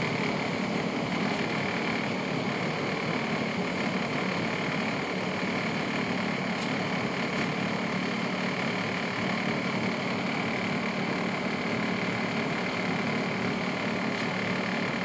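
PATCO Speedline rapid-transit train running at speed: a steady rumble of wheels on rail, with a low hum and a high whine held level throughout.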